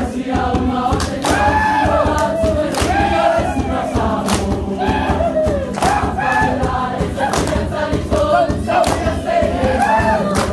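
A group of voices singing a Samoan song, backed by regular drum strokes, with crowd shouts mixed in.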